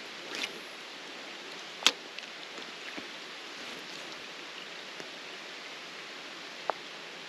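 Steady rushing hiss of flowing creek water, broken by a sharp click about two seconds in and a smaller click near the end.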